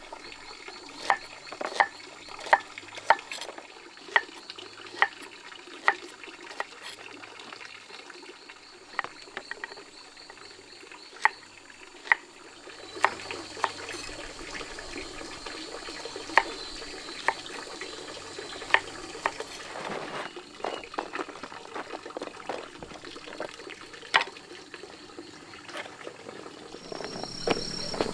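Water splashing and trickling, with sharp knocks, about one every second, through the first half. The running water gets steadier and a little louder from about halfway.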